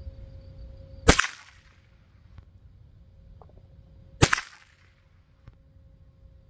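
.22 rifle fired twice, about three seconds apart, each shot a sharp crack with a trailing ring. A shorter, quieter click comes near the end.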